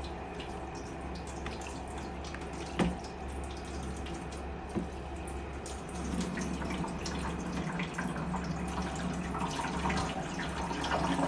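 Water poured by hand into a dehumidifier trickling and hissing as it drains through the unit, draining freely rather than backing up. A steady low hum runs underneath, with a couple of small knocks and the water growing louder about halfway through.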